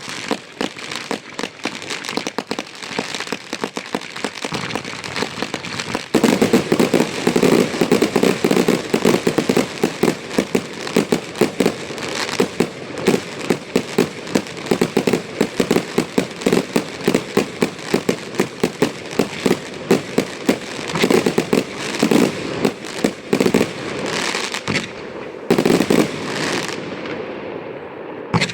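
Fireworks display: a dense, rapid stream of bangs and crackling. It gets louder and faster about six seconds in and thins out near the end.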